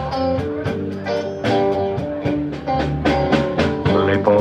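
Live band playing amplified music: electric guitars over a drum kit keeping a steady beat.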